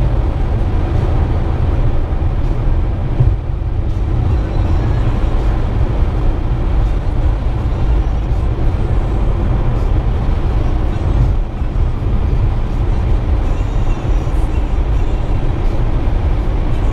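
Steady road and engine noise of a car cruising on a highway, heard from inside the cabin: a constant low rumble with tyre noise on the asphalt.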